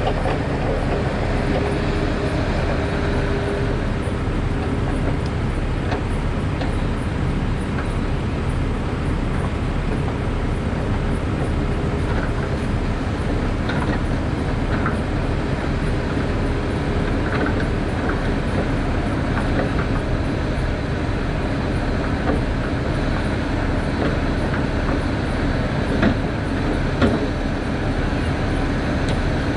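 Heavy diesel logging machinery running steadily: a grapple skidder driving across the landing near a Tigercat knuckleboom loader, a continuous low engine rumble. Two short sharp knocks come near the end.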